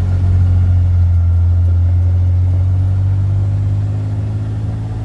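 Car engine with a steady low drone, a little louder in the first couple of seconds and easing off toward the end.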